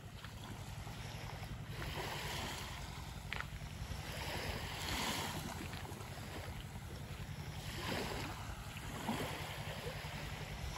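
Small waves washing onto a sandy shore, swelling and fading every few seconds, over a steady low rumble of wind on the microphone.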